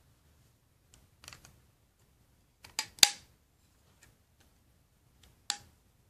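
LEGO bricks clicking and snapping as pieces are pressed onto a model. There are a few light clicks first, two sharp snaps about three seconds in, and one more sharp snap near the end.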